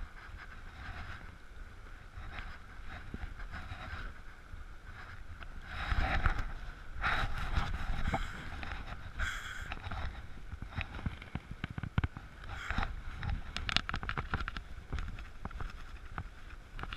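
Shallow stream running and babbling over stones, with gusts of wind buffeting the microphone about 6 and 8 seconds in and a few short taps and clicks later on.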